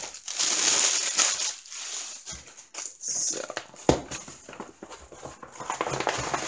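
Clear plastic wrap crinkling and rustling as a rolled diamond painting canvas is handled and slid out of its sleeve, with a sharp knock about four seconds in.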